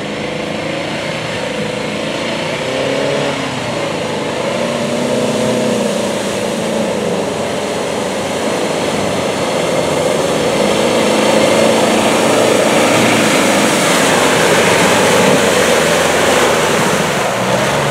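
Engine of a Daihatsu-based off-road trial truck revving up and down as it churns through a mud and water section. It gets louder over the second half as it comes close.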